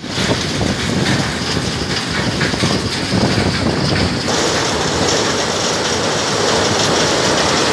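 Loud, steady rumbling and rattling of heavy plant at a rock-processing site: an excavator tipping rock into a feed hopper, with the feeder and conveyor running. The sound shifts abruptly about four seconds in.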